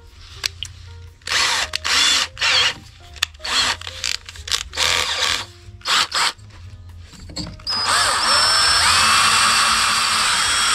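Several short bursts of hiss, then from about eight seconds in an electric drill runs steadily for nearly four seconds, its motor pitch rising and falling, drilling a 3.3 mm hole to recut a stripped bolt thread in a trimmer.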